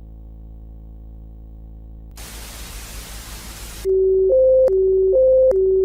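Low steady synthesizer drone; about two seconds in, a burst of radio static lasting under two seconds, then a loud electronic two-tone alert that switches back and forth between a low and a higher pitch a little over twice a second, announcing the next emergency broadcast.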